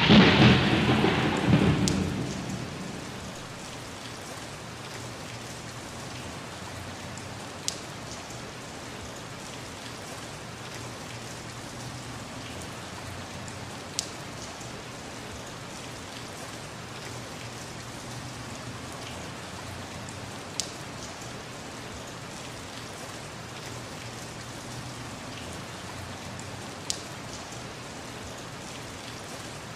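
Steady rain, opening with a loud clap of thunder that rumbles away over the first two to three seconds. Four sharp clicks cut through the rain, about six seconds apart.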